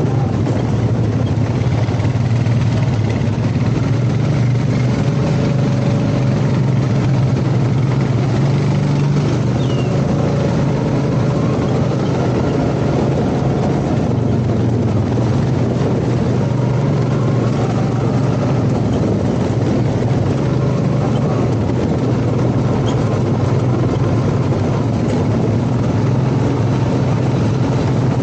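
ATV engine running steadily, a loud, even low drone with no change in pitch.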